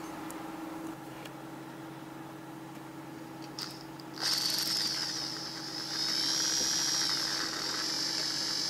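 Electric drill starting about four seconds in and running with a steady high whine that wavers a little under load: a twist bit drilling out the 6 mm bolt hole in a GAZelle 4216 engine's water pump housing. Before that there is only a steady low hum.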